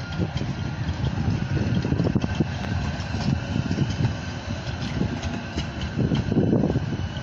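Articulated low-floor electric tram passing close by at low speed: a low rumble from the wheels and running gear, with a faint steady electric whine above it.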